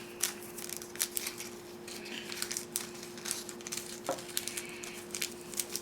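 Rustling of a small plastic parts bag and light clicks of tiny screws being picked out by hand, over a steady faint hum.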